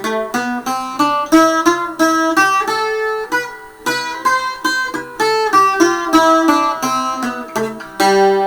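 Restored Thuringian waldzither, a steel-strung cittern tuned to open C, being picked: a quick run of plucked notes and chords. A chord is left ringing about three seconds in before the picking resumes.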